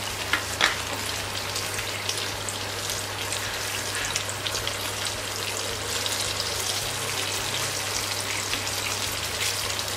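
Eggs and sliced tomatoes frying in a pan, a steady sizzle with fine crackling as the eggs cook through in the tomato sauce. A couple of light clicks about half a second in.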